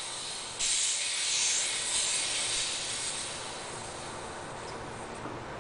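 High-pressure air hissing out through the bleed valve of a PCP tank's fill adapter, bleeding the fill line after the tank has been filled to 3000 PSI. It starts suddenly about half a second in and fades over the following seconds, with a low rumble underneath.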